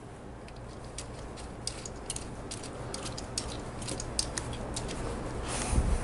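Light, irregular metallic clicks and ticks of steel nuts and washers being started on studs and turned with a combination wrench, over a low steady hum.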